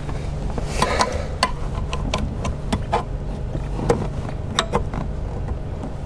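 A trim clip removal tool prying and tapping at plastic clips and the metal seat frame: irregular sharp clicks and knocks with a brief scraping rustle about a second in, over a steady low hum.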